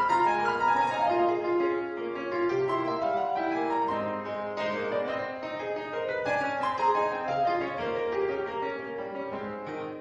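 Instrumental keyboard music: a continuous flow of notes in running melodic lines.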